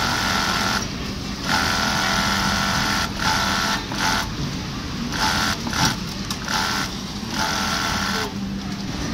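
Industrial automatic waistband sewing machine running in short runs, starting and stopping several times, over a steady low hum.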